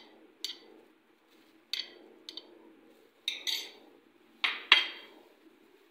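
Metal spoon clinking against glass bowls as mango cubes are scooped from one bowl into another: about eight sharp, separate clinks, the loudest two close together near the end.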